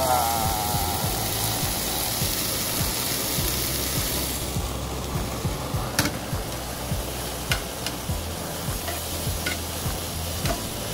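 Marinated spicy pork (jeyuk bokkeum) sizzling as it is tossed and stirred in a nonstick frying pan over a portable gas stove. The sizzle is strongest for the first four seconds or so, then eases. In the second half, wooden chopsticks click against the pan a few times.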